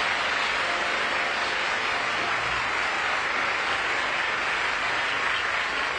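Studio audience applauding, a steady, dense clapping.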